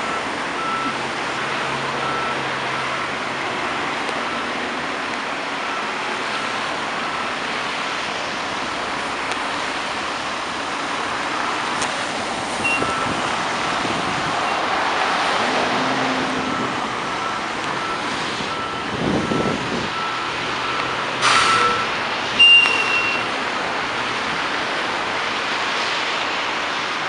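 Fire pumper backing into its station bay: diesel engine running low under a steady reversing alarm that beeps at regular intervals, then stops about three-quarters of the way through. Two short, loud hissing bursts follow about a second apart as the truck comes to rest, the air brakes being set.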